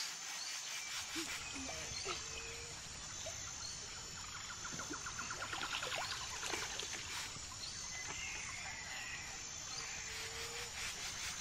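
Outdoor nature ambience: a high insect trill repeating in even pulses over a soft steady background, with scattered short chirping calls and a rapid pulsed trill around the middle.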